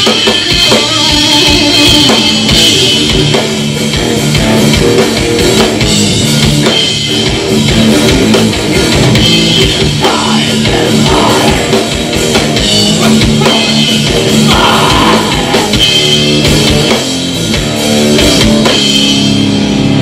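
Live rock band playing loudly: a drum kit keeping a steady beat under electric guitar.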